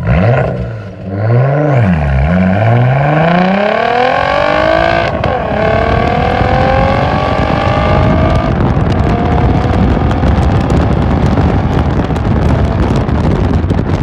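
Straight-piped turbocharged Audi A4 engine recorded right at the exhaust tip: a couple of light blips, then it accelerates hard with the pitch climbing, drops at a gear change about five seconds in, and pulls up again. After about eight seconds the exhaust note fades under a loud rush of wind and road noise.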